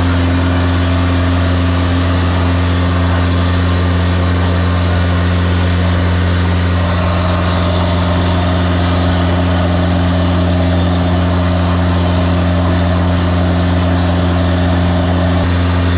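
High-pressure drain jetter running at a steady pitch: a constant low engine-and-pump drone with no change in speed.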